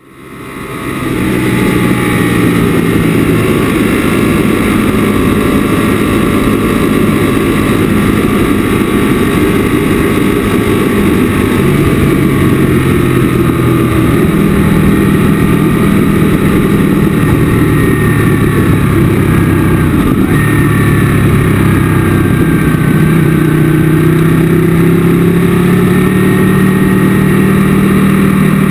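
Sport motorcycle at speed on a racetrack, heard from a camera mounted on the bike: the engine runs loud and steady under rushing wind, its pitch shifting up and down with throttle and gear changes. The sound fades in over the first second or so.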